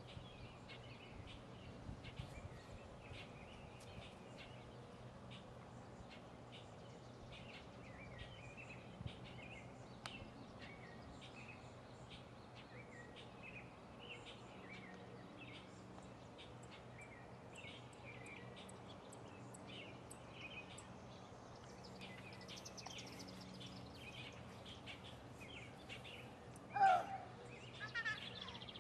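Birds chirping off and on over a low steady hum. Near the end comes a single louder, brief high-pitched call that rises and falls in pitch.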